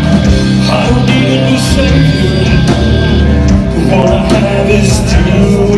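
A rock band playing live and loud on electric guitars and drums.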